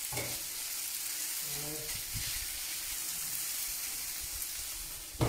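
Food sizzling steadily on a hot, heavy enamelled plancha on a gas grill as tender wheat risotto warms and is stirred, with a sharp knock just before the end.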